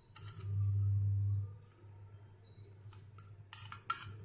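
Metal utensils scraping and clicking against a steel spoon and an aluminium pan while lipstick is scraped into the pan, with a few sharp clicks near the end. A low steady hum runs for about a second near the start, and faint short high chirps come several times.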